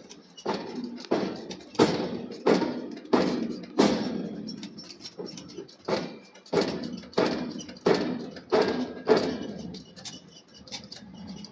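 Forging hammer striking hot steel in a steady run of heavy blows, about one and a half a second, with a brief break in the middle and lighter hits near the end.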